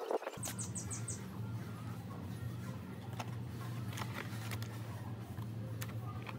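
Wire mesh being set into a cardboard mold: a few light taps over a steady low hum. Near the start, a quick run of five short high chirps.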